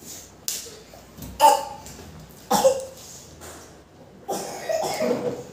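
A man coughing with his mouth full while eating: three short coughs, then a longer throaty one near the end.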